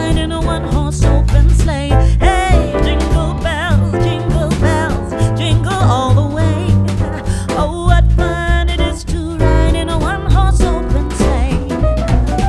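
Background song with a sung melody over bass and a steady beat.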